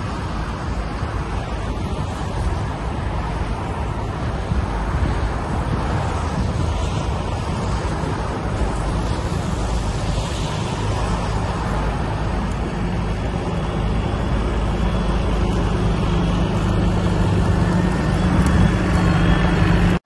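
Steady street traffic noise of passing cars, swelling slightly toward the end.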